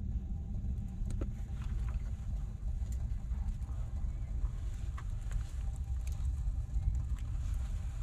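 A steady, low, fluctuating rumble with scattered small clicks and rustles, like hands moving things and dry leaves close by.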